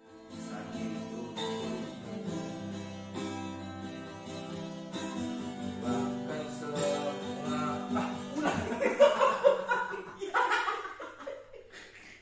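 Guitar strummed in slow chords with a man singing along. About eight and a half seconds in, the playing stops and both men break into laughter.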